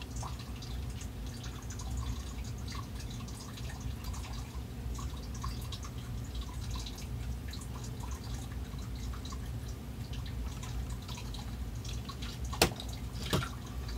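Faint crackling ticks of solder flux sizzling as solder is melted onto a terminal pad, over a steady low hum. Two sharp clicks come near the end.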